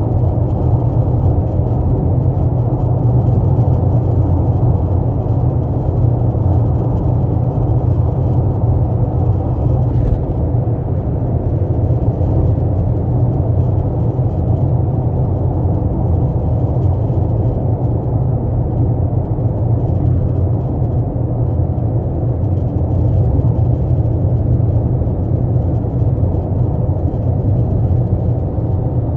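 Steady low rumble of a 12th-generation Toyota Corolla Altis running, heard from inside the car, in a recording made to capture a noise the owner calls abnormal. A faint click about ten seconds in.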